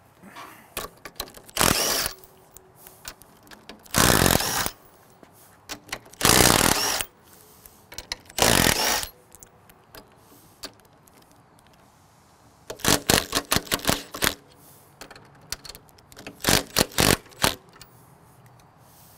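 Makita cordless impact driver with a 9/16-inch socket, backing out the bolts that hold a door block. It runs in four short bursts of about half a second to a second, then in two quick stuttering runs, with small clicks between.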